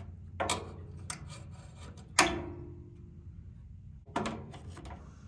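Handling noise from tools and the heater's metal parts: a few sharp knocks and clicks, the loudest about two seconds in with a short metallic ring after it, over a steady low hum.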